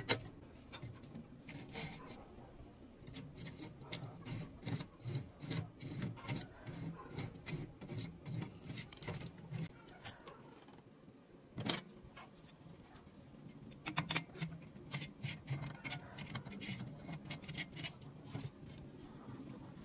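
Homemade steel screw clamps being fitted onto a galvanized square pipe and their threaded rods screwed down. The sound is a run of small metal clicks and knocks over rubbing and scraping, with a sharper knock at the start and another about twelve seconds in.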